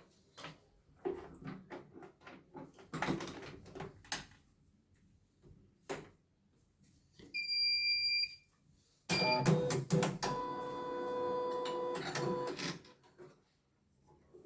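CNY E900 computerized embroidery machine under repair: scattered clicks and knocks of hands working on it, then an electronic beep of about a second, a short blip, and a louder steady multi-tone machine sound lasting about three and a half seconds.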